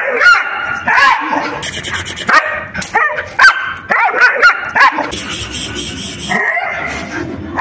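German Shepherd barking repeatedly, short sharp barks coming a second or less apart.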